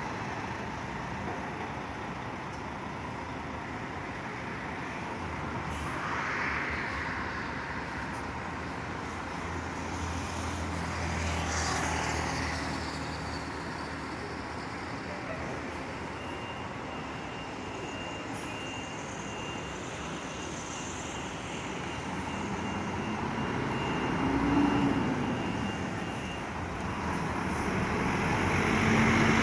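Intercity coaches' diesel engines running and moving past, over a bed of road traffic noise, swelling louder a few times as vehicles go by.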